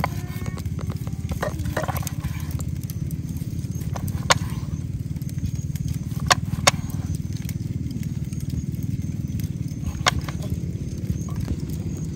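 Kitchen knife slicing seared beef on a wooden cutting board, with a few sharp taps of the blade on the board, two of them close together, over a steady low rumble.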